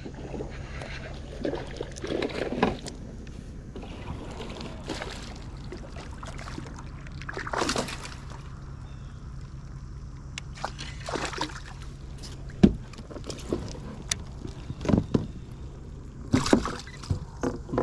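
Water sloshing and splashing with scattered knocks, over a steady low hum. The sharpest knock comes about two-thirds of the way in, and there are splashy bursts near the end.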